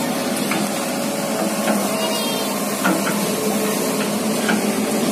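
A ship's engine running: a steady drone with a low hum under an even rushing noise, with a few faint ticks.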